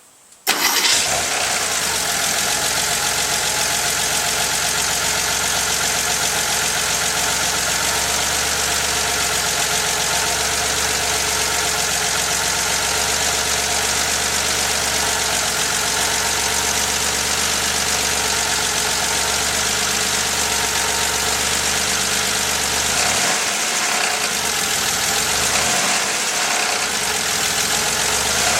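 Porsche 911 SC's stock 3.0-litre air-cooled flat-six running steadily, coming in suddenly about half a second in. It has a knocking that the owner fears may be rod knock.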